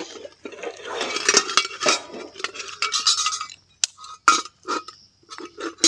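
Metal camping cookware and steel containers clinking and knocking together as gear is taken out of a backpack, with rustling handling noise in between.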